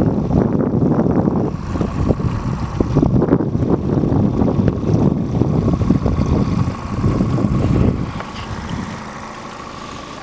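Fishing boat's outboard motor running at speed, with wind buffeting the microphone. About eight seconds in, the loud rumble eases off, leaving a quieter, steady engine hum with a faint whine.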